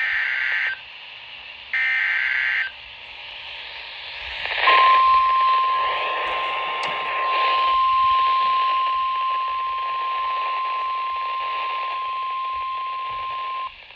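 NOAA Weather Radio Emergency Alert System tones over a steady radio hiss. First come two short bursts of the warbling SAME digital header. About five seconds in, the 1050 Hz weather alert tone starts and holds steady for about nine seconds, signalling that a warning follows.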